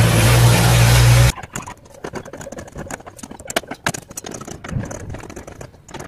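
A loud steady motor-like drone with a deep hum cuts off abruptly a little over a second in. After it come scattered light metallic clicks and taps as bolts and a screwdriver are handled on a washing machine's transmission and its base plate.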